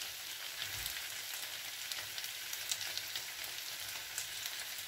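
Chicken pieces frying in oil on a tawa, with onion and tomato slices on top: a steady sizzling hiss with scattered small crackles and pops.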